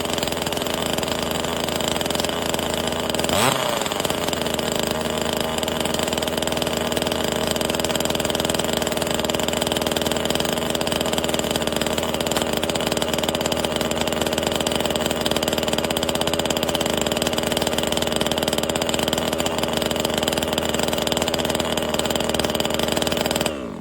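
NEO-TEC 25.4cc two-stroke top-handle chainsaw running steadily, with one quick rev about three and a half seconds in. The sound cuts off suddenly at the very end.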